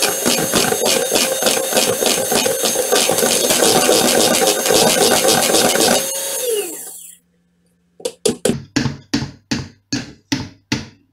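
Electric hand mixer beating cake batter in a plastic bowl, running steadily, then switched off about six seconds in and winding down with a falling whine. After a short pause, a quick run of sharp knocks, about three a second, as the beaters are tapped against the bowl's rim to shake off batter.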